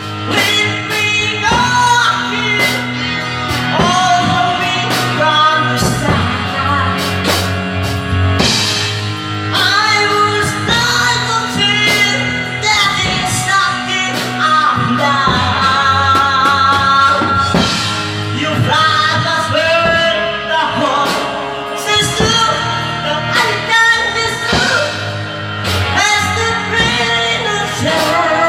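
A pop song with singing over a steady beat, playing as background music.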